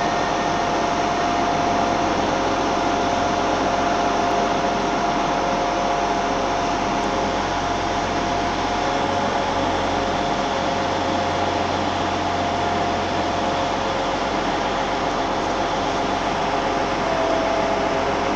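Train standing at a station platform with its engine and onboard equipment running: a steady drone with a constant whine.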